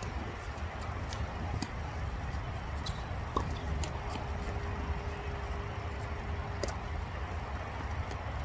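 Steady low outdoor background noise, with a single short sharp knock about three and a half seconds in and a faint steady hum through the middle.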